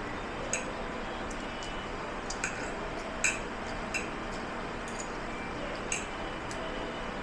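Dishes and cutlery clinking about five times while being washed, each clink sharp and briefly ringing, over a steady background rush.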